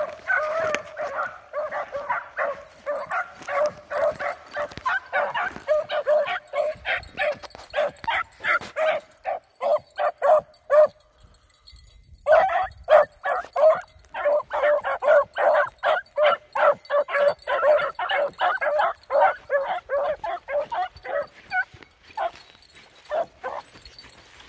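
Seven-month-old beagle pups baying in quick, repeated calls, the way hounds give tongue on a scent trail. The calls break off for a second or so near the middle, start again, and thin out near the end.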